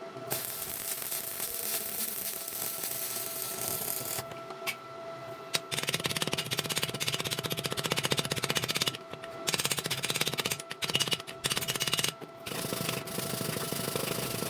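Stick-welding arc crackling and hissing in long runs, with a short break about four seconds in and several brief breaks in the second half where the arc goes out and is struck again.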